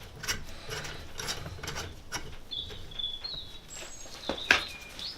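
Valve spring compressor being wound in on a Classic Mini A-series cast iron cylinder head: irregular metallic clicks and ticks as the tool turns, with a few brief high squeaks in the second half.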